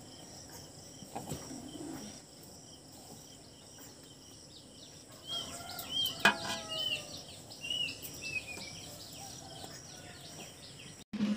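Steady high trilling of insects, with a bird chirping a run of short falling notes about halfway through. Faint wet sounds come from hands scooping churned butter out of buttermilk into a metal bowl.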